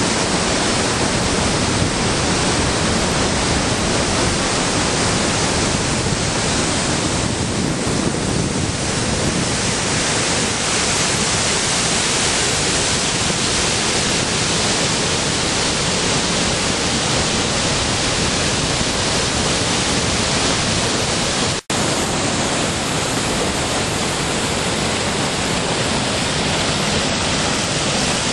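Muddy flash-flood water rushing steadily down a rocky desert wadi and pouring over a rock-ledge waterfall. The sound cuts out for an instant about three-quarters of the way through.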